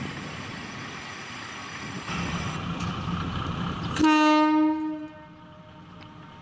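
Isumi Railway diesel railcar running, its rumble growing louder about two seconds in, then one blast of its horn about four seconds in, lasting about a second and the loudest sound, before it fades.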